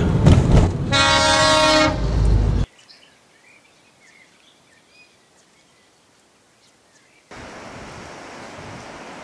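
A vehicle horn sounds for about a second over loud road noise as heavy trucks pass on a narrow road. It cuts off suddenly to a faint background with a few small chirps, and a steady rushing noise comes in about seven seconds in.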